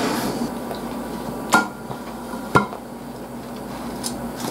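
Tableware knocking: chopsticks and a soup bowl clack twice, about a second apart, with a short ring, as the bowl is handled and set down on the table, followed by a fainter click near the end.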